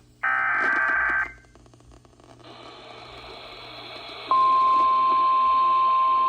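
NOAA Weather Radio emergency alert signalling: a one-second burst of SAME digital header tones, the last of the data bursts that open a new warning. Radio hiss then rises, and about four seconds in the steady 1050 Hz weather radio warning alarm tone begins and holds.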